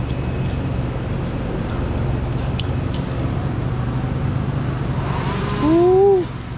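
Steady low rumble of motor vehicles, with a single sharp click partway through. Near the end comes a short groan of effort that rises and falls in pitch, from a climber who is out of breath.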